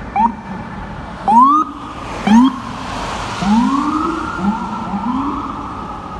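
Fire truck siren blipped in six short rising whoops. The later ones are longer and sag slowly back down in pitch, over steady city traffic noise.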